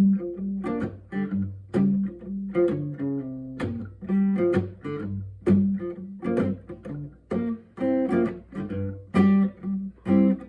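Guitar playing an instrumental intro: plucked and strummed chords with a repeating bass note, at a steady rhythm.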